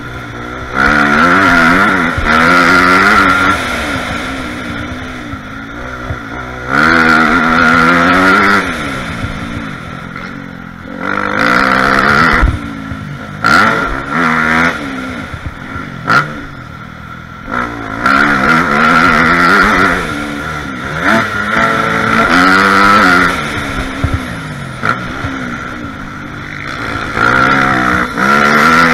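Dirt bike engine ridden hard, picked up by the rider's helmet camera. The throttle is opened and closed again and again, so the engine note climbs in loud surges every few seconds and drops back in between, with a few sharp clicks along the way.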